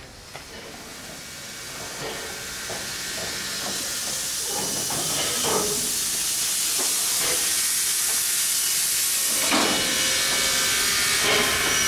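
Steam hissing from steam locomotive No. 88.103, building up over the first few seconds and then holding steady and loud, with a few light knocks in the middle.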